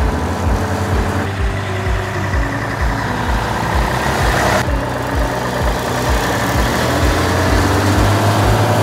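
Mercedes-Benz NG 1222 S truck's diesel engine running on the move, its pitch rising in the second half as it pulls. A steady low beat of background music runs underneath.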